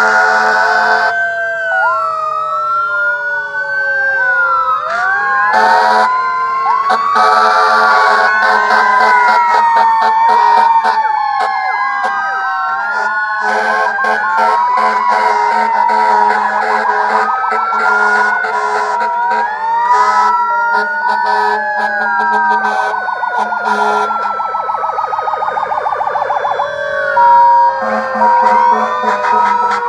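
Sirens of several fire engines wailing and yelping over one another, their pitches rising and falling across each other, with loud horn blasts in the first ten seconds.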